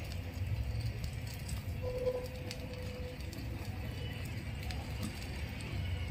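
Miniature stone roller rolled back and forth over a small stone grinding slab (ammi), crushing a cooked onion-tomato paste: a steady low grinding rumble with faint scattered clicks.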